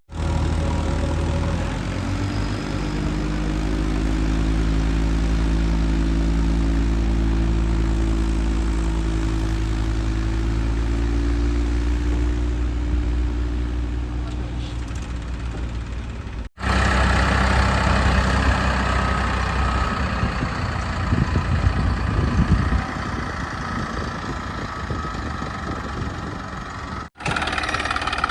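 Diesel engine of a JCB 3DX backhoe loader running steadily under working load, its pitch drifting slightly. It breaks off abruptly about two-thirds of the way in, then runs on rougher and noisier with clatter, with one more abrupt cut near the end.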